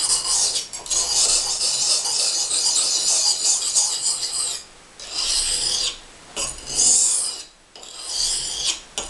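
Steel chef's knife blade scraping across an oiled sharpening stone: a continuous rasp for about four and a half seconds, then three shorter strokes with brief pauses between them.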